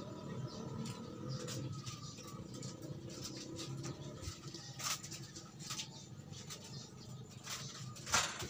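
Soft scattered clicks and rustles of hands handling thin wires and a soldering iron, with two sharper ticks about five and eight seconds in.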